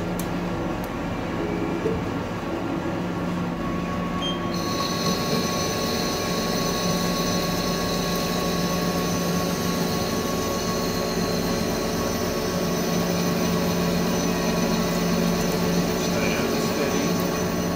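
TM-26120G centre lathe running with a steady drive hum while its tool cuts the steel hollow bar. About four and a half seconds in, a high, steady hiss of the cut joins in as the tool takes the chip.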